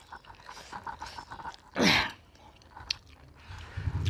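Soft chewing and wet eating sounds as rice mixed with dal is eaten by hand, with quick small clicks in the first second or so. About two seconds in comes one short, loud sound falling steeply in pitch. A low steady hum starts near the end.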